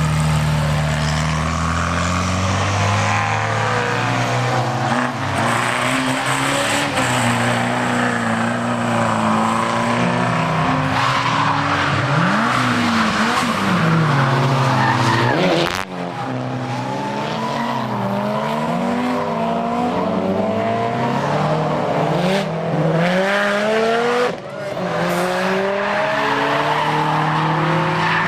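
Race car engines at full song on a hillclimb road, the revs sweeping up and dropping back again and again through gear changes and lifts for the bends.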